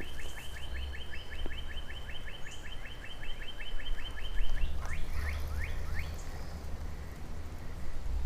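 A bird singing a long, fast trill of repeated notes, about four or five a second, that breaks off about four and a half seconds in and gives way to a few quick falling notes. A steady low rumble runs underneath.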